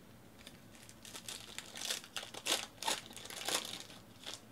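Foil wrapper of a trading-card pack crinkling and tearing as it is opened by hand, in a string of crackly rustles that are loudest in the middle.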